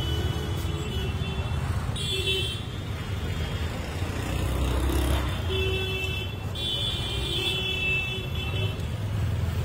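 Street traffic: a steady low rumble of passing vehicles, with several horn toots about two seconds in and again between about five and eight seconds in.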